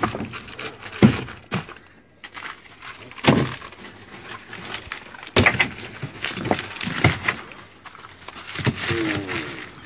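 Frozen fish fillets in plastic freezer bags being packed into a plastic cooler box: bags rustling, and several separate knocks as the hard frozen packs hit each other and the cooler walls.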